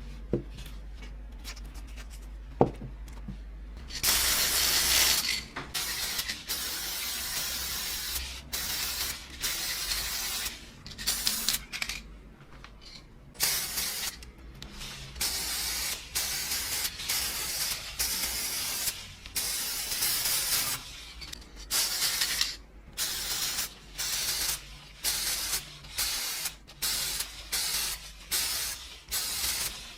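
Aerosol spray can spraying in repeated short bursts. The first and loudest burst comes about four seconds in and lasts over a second; later ones are about half a second long, roughly one a second. Two sharp clicks come before the spraying starts.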